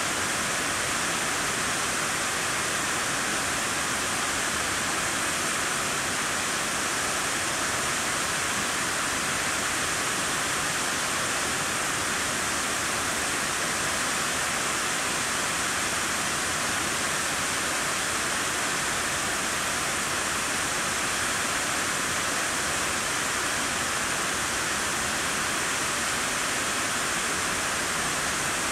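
Steady, even rush of the water curtains falling down the walls of the World Trade Center North Tower reflecting pool into its basin.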